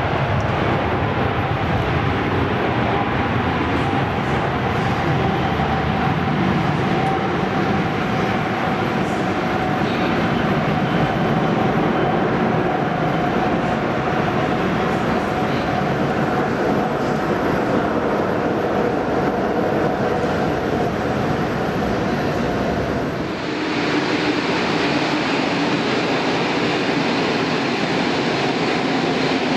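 Jet engines of an Airbus A380-861, four Engine Alliance GP7200 turbofans, running during the landing rollout: a steady roar with a faint held hum that drifts slightly lower. About 23 seconds in it cuts to a thinner, higher engine whine as the jet taxis.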